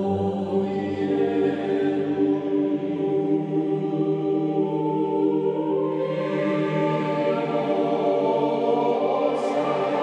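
Slow background music of long held chords, with higher notes joining about six seconds in.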